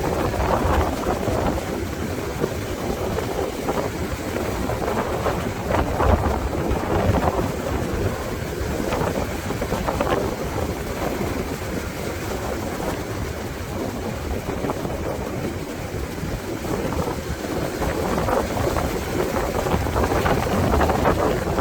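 Strong wind buffeting the microphone in irregular gusts, a loud rumble over the wash of ocean surf.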